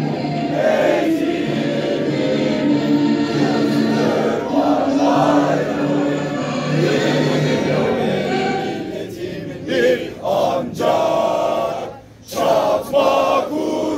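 Crowd of young people singing together in unison, holding long notes. In the last few seconds the singing breaks into short separate phrases with brief gaps.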